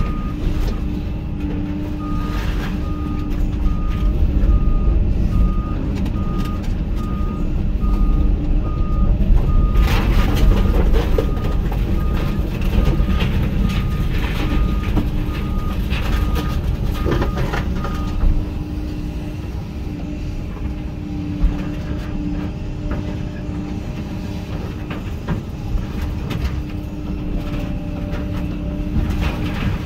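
Hyundai HX220AL excavator's diesel engine running under load with a steady hydraulic whine, while its travel alarm beeps evenly until about two-thirds of the way through. In the middle comes a spell of metal crunching and clattering, with a couple of single bangs after it.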